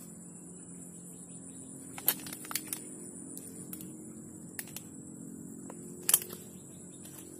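Steady high-pitched insect chorus, with a handful of sharp clicks; the loudest come about two seconds in and about six seconds in.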